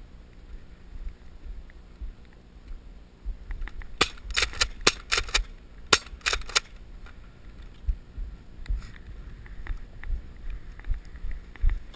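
A quick run of about nine sharp snapping clicks in two and a half seconds, from Nerf blasters firing, over a low, gusty rumble of wind on the microphone.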